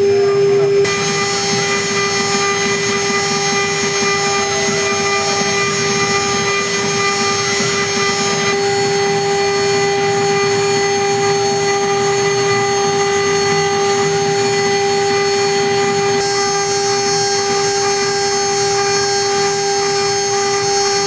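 Spindle of a MAX7 CNC metal milling machine running at steady speed with a constant whine, while a small end mill cuts into a brass plate with a rough cutting noise underneath.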